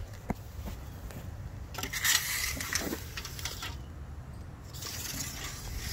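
Handling noise: rubbing and scraping as a tape measure and lumber are handled, in two stretches of a second or two each, with a light click near the start.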